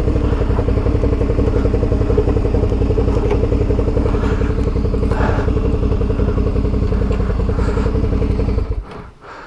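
Adventure motorcycle engine running steadily at low revs, then switched off near the end.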